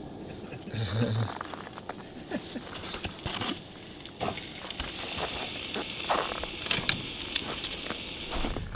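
Ptarmigan breasts frying in butter in a frying pan, a steady sizzle with sharp crackles that sets in about five seconds in, after a few handling clicks as the meat is laid in the pan.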